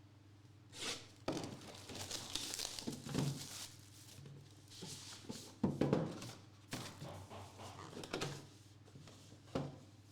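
A sealed trading-card box being opened and handled: wrapping crinkling and tearing, cardboard scraping, and a few soft thunks, over a faint steady electrical hum.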